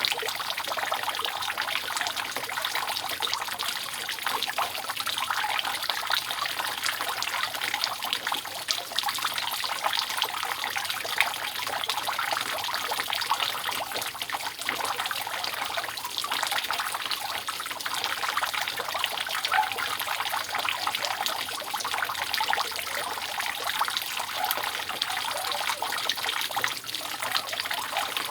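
Water dripping and trickling steadily off a roof, a dense, unbroken patter of drops.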